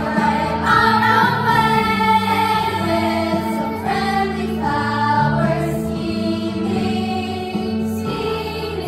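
A children's choir singing together on stage, over steady instrumental accompaniment.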